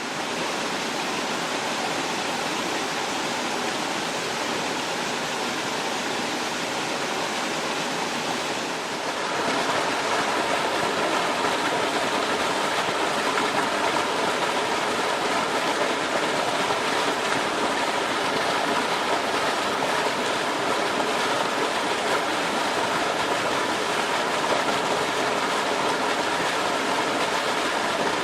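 Mountain valley stream rushing steadily over rocks. About nine seconds in the sound shifts and becomes a little louder, as at another stretch of the water.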